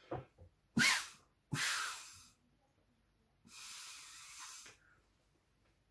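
Puffs of air blown through a drinking straw across watery black paint on paper, pushing the paint out into branch shapes. There are three blows: a short, sharp one a little under a second in, which is the loudest, a second one right after it, and a longer, softer blow of about a second and a half.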